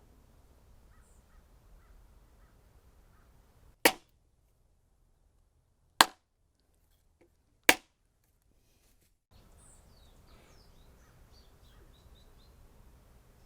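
Three sharp knocks about two seconds apart: a mallet tapping the glued joints of a wooden chair together. Faint bird calls come in near the end.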